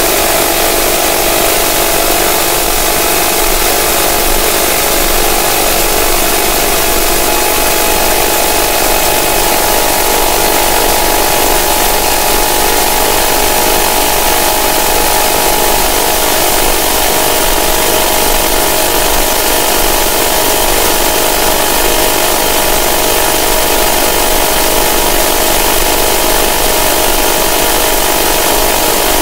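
Noise music: a loud, unbroken wall of hiss with steady droning tones in the middle range, which shift slightly about ten seconds in.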